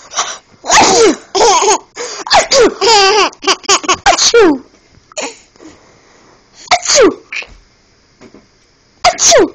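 A baby laughing in a quick run of short bursts, together with an adult's pretend sneezes ('achoo') done to set the baby off. The laughing is densest in the first half, and two more short bursts falling in pitch come later, with quiet gaps between.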